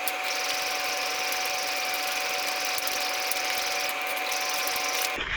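Steady whir of a small electric motor with a strong airy hiss and a thin steady whine, starting and cutting off abruptly.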